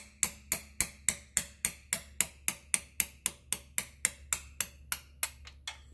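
Hammer striking a pin punch in a quick, steady rhythm of about three to four metal-on-metal taps a second, driving the roll pin out of a Subaru Outback's inner CV joint at the transmission stub shaft. The taps stop just before the end.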